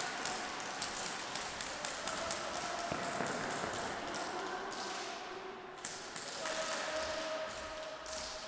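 Airsoft guns firing: irregular sharp snaps and clicks, two or three a second, from shots and BBs striking nearby surfaces.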